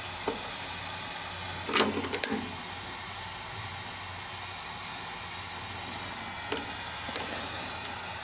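Light metal clinks and taps as a steel workpiece and angle iron are set and shifted by hand in a milling-machine vise, the loudest few about two seconds in and two more near the end, over a steady low shop hum.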